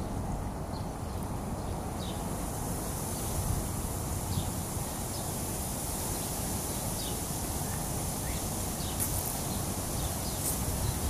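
Outdoor ambience: a steady high insect hiss with scattered short bird chirps, over a low rumble of wind and movement.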